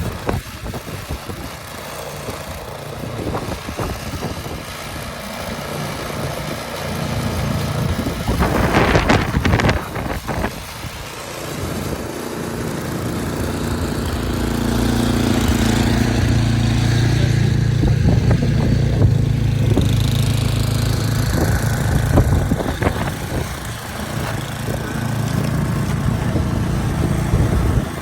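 A motor vehicle's engine running steadily, with a low hum that grows louder through the middle of the stretch, over constant noise.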